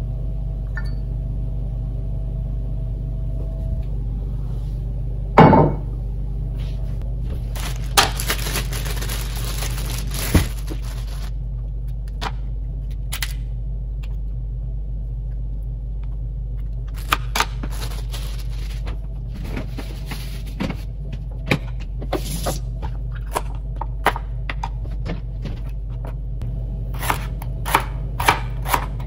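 Chef's knife chopping celery on a plastic cutting board, becoming a quick run of knocks near the end, after scattered knocks and a rustle of handling earlier, with a loud single knock about five seconds in. A steady low hum runs underneath.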